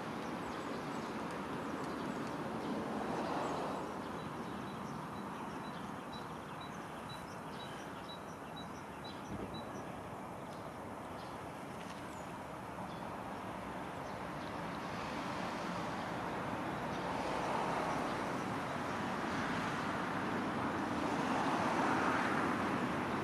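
Outdoor town ambience: a steady wash of distant traffic that swells a few times. Partway through comes a short run of high, evenly spaced peeps, about two a second.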